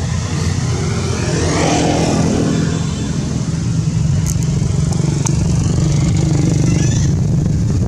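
A road vehicle's engine runs steadily with a low drone. A pitched engine note swells and fades about one to three seconds in, as of a vehicle passing.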